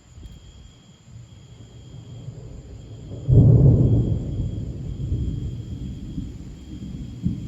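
Thunder from a supercell thunderstorm: a sudden loud clap about three seconds in, then a deep rumble that rolls on and slowly fades.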